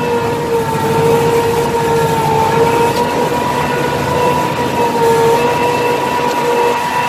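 Tractor engine running steadily under load while towing a disc harrow through the field, heard close from the driver's seat, with a steady whine over the engine noise.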